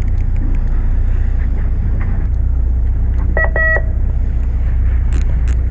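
Fishing boat's engine running with a steady low rumble, with a short electronic beep about three and a half seconds in and a few light clicks near the end.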